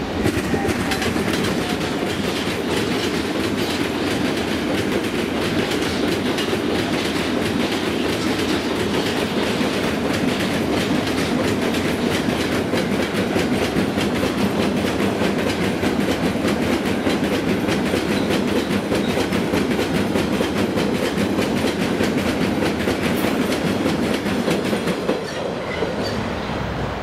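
Freight train of loaded double-deck car-transport wagons rolling past close by: a steady rumble of wheels on rails with rapid clickety-clack over the rail joints. It eases off near the end as the last wagon passes.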